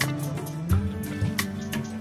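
Background music with sustained tones and sharp percussive hits.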